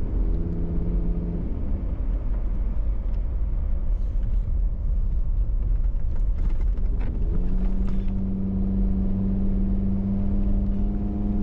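Hummer's engine running through a broken exhaust with the muffler torn off: a loud, low drone. About seven seconds in the engine note rises, then holds steady at the higher pitch.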